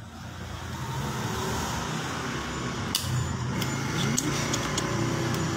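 Steady low rumble of a motor vehicle's engine running, swelling up at the start. A sharp click comes about three seconds in, followed by several lighter ticks.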